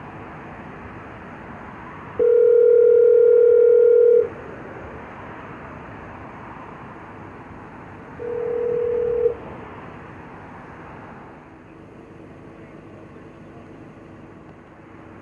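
Mobile phone call ringback tone from the phone's speaker: one steady ring of about two seconds, a four-second pause, then a second, quieter ring that cuts off abruptly after about a second.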